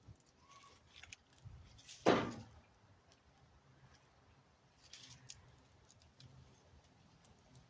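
Small clicks and handling noises of metal go-kart parts being fitted by hand, with one louder knock about two seconds in and a few faint clicks around five seconds.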